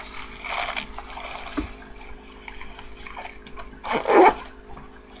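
Rustling and crinkling of a clear plastic pouch, with small knocks and clicks from items being handled and packed away. The loudest handling noise comes about four seconds in.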